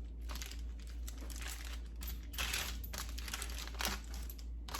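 Paper crinkling and rustling in uneven bursts as warm tortillas are rolled around chicken filling into taquitos, loudest about two and a half seconds in, over a steady low hum.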